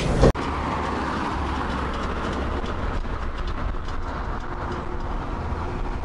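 Steady driving noise of a car moving along an asphalt road: even tyre and road rumble with a low engine hum, starting abruptly just after the beginning.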